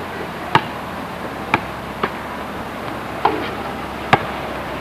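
Steady hiss from old camcorder videotape, with five sharp, irregularly spaced knocks or clicks.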